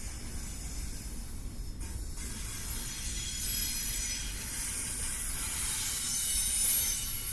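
Long freight train rolling slowly past: a steady low rumble of wheels on rail under a high hiss and thin squealing tones, louder in the second half.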